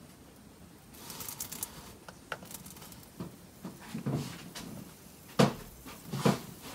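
Effervescent tablets fizzing and popping in oil-and-water lava-lamp tubes, a light crackly patter. Soft knocks join in, and near the end come two sharp taps about a second apart.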